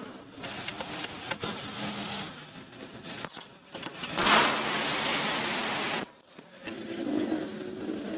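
Small metal motorcycle engine parts clinking and tapping as the centrifugal oil filter rotor and its cover are handled at the crankshaft end of the clutch side. A steady hiss lasts about two seconds in the middle.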